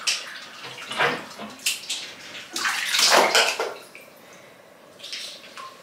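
Water from a handheld shower head splashing in a bathtub as shampoo is rinsed off a puppy, coming in uneven surges and loudest about three seconds in. Near the four-second mark the water is turned off at the tap and the splashing dies down.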